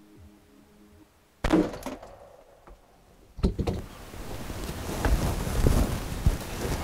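A single shot from a scoped Smith & Wesson .460 revolver about a second and a half in, a sharp crack that dies away quickly. A second sharp knock follows about two seconds later, then rustling with low thumps that grows louder.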